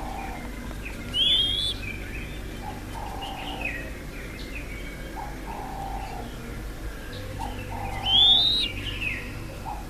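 Doves calling. Two loud, rising whistled calls come about a second in and again near the end, with softer low hooting notes repeated every second or two between them.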